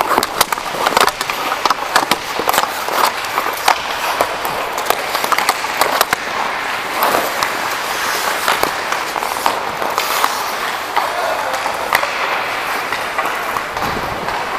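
Ice hockey skate blades scraping and carving on the ice, mixed with sharp clacks of sticks and puck. The clacks come thick and fast for the first six seconds, then thin out under a steadier scrape.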